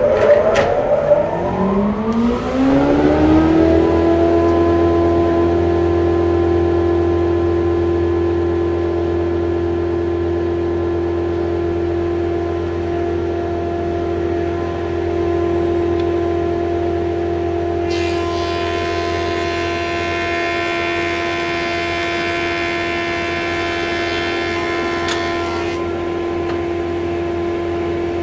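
De Vries Arnhem industrial thickness planer starting up after a blade change: the motor and cutterhead whine climbs in pitch over the first three or four seconds, then settles into a steady running hum and whine. About two-thirds of the way through, a second, higher whine joins for about seven seconds and then stops.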